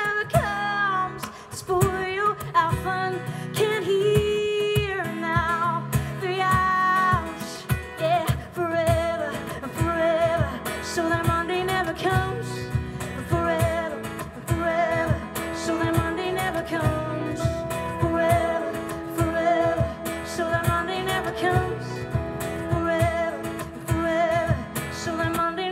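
A woman singing live to her own strummed acoustic guitar, with long held, sliding vocal notes over a steady strum.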